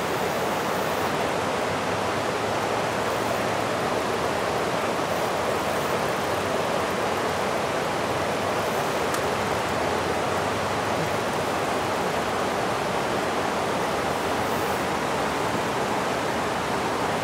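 Steady rush of river water pouring over a low dam and through whitewater rapids, an even roar with no breaks.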